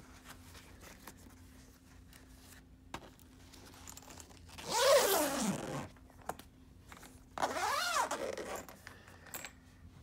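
The zippers on a Riccar Supralite upright vacuum's outer bag being pulled shut, two zips of about a second each, the second coming about two seconds after the first.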